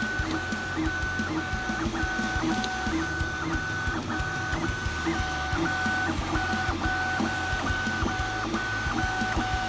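HevORT DIY 3D printer's stepper motors whining as the print head lays down the first layer, a high tone that breaks off and restarts about twice a second as each move ends and the next begins.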